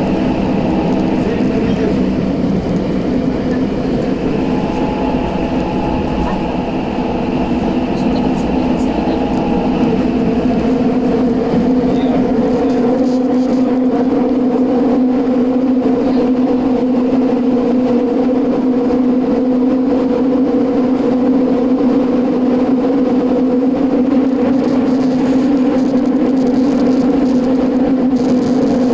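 Tokyo Metro 8000 series subway train running at speed through a tunnel, heard from inside the car: a loud, steady rumble of wheels on rail with a droning hum that settles to a constant pitch about halfway through.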